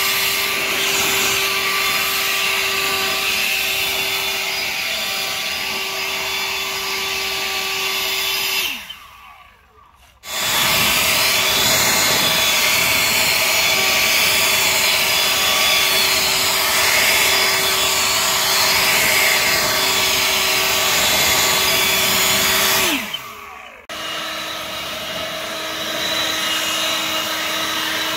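EGO LB7650E cordless battery leaf blower running hard: a steady fan whine over a loud rush of air. About nine seconds in it spins down almost to silence, then comes straight back on at full power. Near twenty-three seconds it winds down again, with the whine gliding down, and restarts at a slightly lower pitch.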